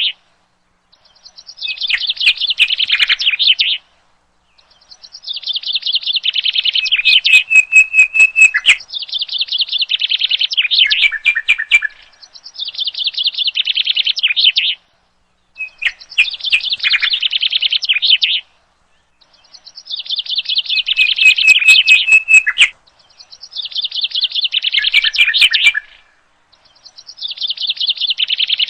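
A nightingale singing: phrases of rapidly repeated high notes, each two to four seconds long, given one after another with short pauses between them.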